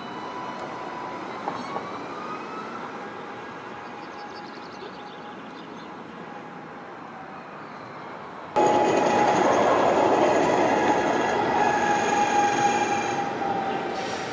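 Alstom tram's electric traction motors whining as it pulls away from a stop, the whine rising in pitch and then fading. After an abrupt cut, a tram runs past much louder, with a slowly falling motor tone and a steady high whine from the wheels on the rails.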